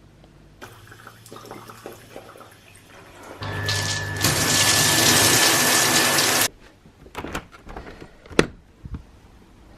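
Water running hard for about three seconds, with a steady high tone in it, then shut off suddenly. Light knocks and clicks come before and after, with one sharp click near the end.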